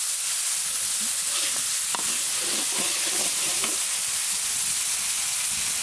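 Chopped shallot, garlic, ginger and chili sizzling in hot oil in a large wok while a steel ladle stirs them, with a light tap about two seconds in.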